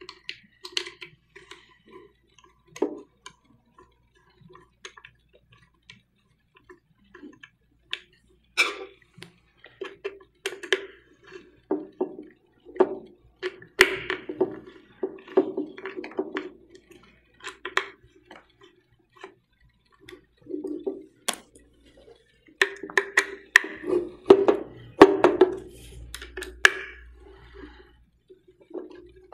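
Scattered clicks, taps and short scrapes of hard plastic prosthetic socket parts being handled while an expulsion plate is screwed onto a valve plate with a hex screwdriver, busiest in the last third.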